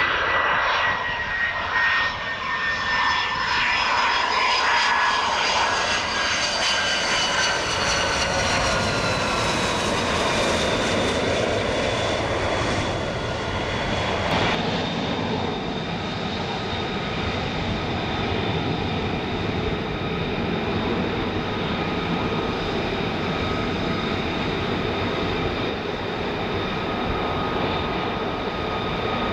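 The F-35 Lightning II's single turbofan rumbles and whines during the landing rollout, its whine sliding down in pitch. About halfway through, the sound changes abruptly to the steady jet whine of an RAF Airbus Voyager's twin turbofans on approach.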